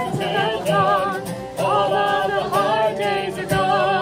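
Live Celtic folk band: a woman singing held notes with vibrato over guitar accompaniment.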